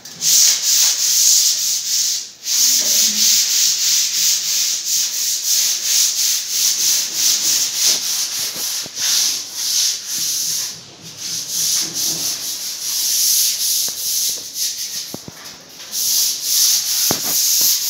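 Sandpaper rubbing over a hard surface in quick repeated strokes, a few a second. It breaks off briefly about two seconds in and slackens a couple of times later on.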